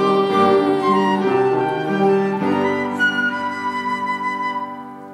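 Church music, flute-like and sustained, that steps through a few chords and settles on a long held final chord fading away near the end.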